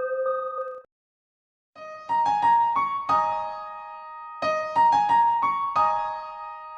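Background piano music: a few sustained notes that stop for about a second, then a melody of struck notes picks up again.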